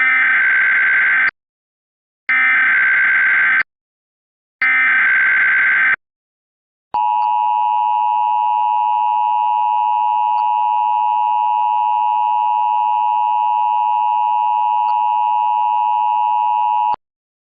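Emergency Alert System tones. First come three bursts of SAME digital header data, each a little over a second long with about a second's gap between them. Then the two-tone attention signal (853 and 960 Hz) holds steady for about ten seconds and cuts off. This sequence opens a new emergency alert broadcast.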